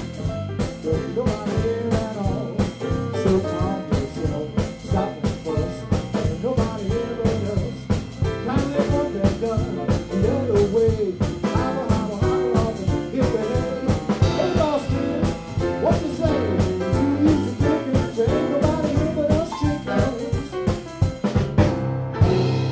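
Live jump-blues band playing an instrumental passage: a swinging drum-kit beat under bass, piano and a melodic lead line. The band lands on a final held chord near the end, which begins to ring out.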